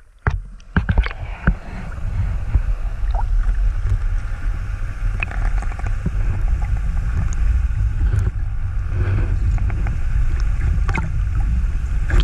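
Underwater sound of white-beaked dolphins: scattered faint echolocation clicks over a steady low underwater rumble, with a few sharp splashes in the first second and a half as the microphone goes under.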